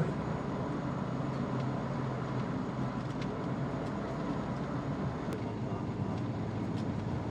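Suzuki Every Wagon van on the move: a steady rumble of engine and road noise, with a few faint ticks.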